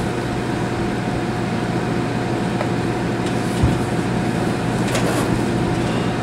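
Steady background hum of the room, with one faint low thump about three and a half seconds in.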